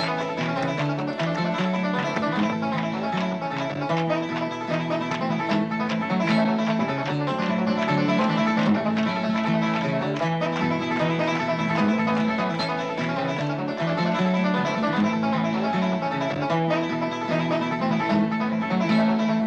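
Bluegrass-style background music with banjo and guitar and a steady beat.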